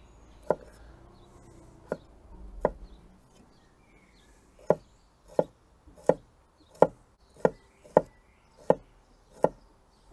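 Kitchen knife chopping broccoli on a cutting board. A few scattered knocks come first, then a steady run of chops at about one and a half per second.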